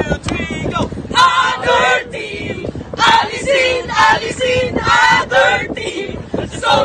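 A group of men and women singing together in short rhythmic phrases.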